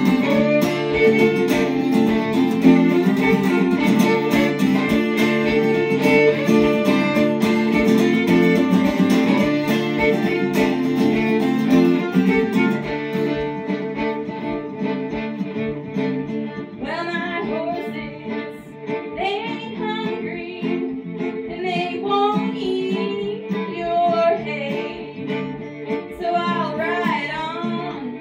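Live folk music: strummed acoustic guitar with fiddle and singing. About halfway through, the strumming stops and the music goes on more softly, carried by a wavering melody line.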